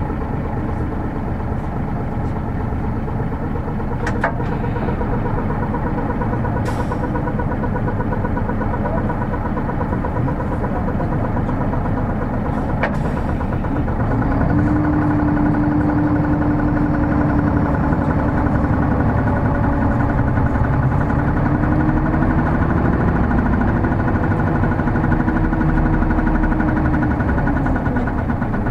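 On-board running sound of a Hino Blue Ribbon City hybrid city bus: engine, drivetrain and road noise running steadily, with a few light clicks in the first half. About halfway through it grows louder and a steady drone comes in.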